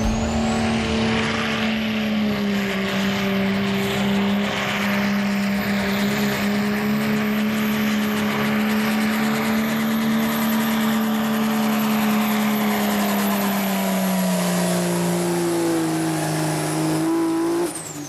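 Diesel pickup truck's engine running flat out as it pulls a weight-transfer sled, with a high whistle that rises in the first second or so. The engine note holds steady, then sags in pitch near the end as the sled drags it down, and cuts off just before the end, the whistle falling away.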